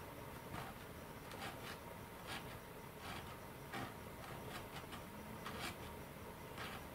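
Faint, irregular light ticks and scrapes, about one or two a second, of a thin applicator stick dabbing slow-cure epoxy into the joint around a servo tray inside a molded fuselage.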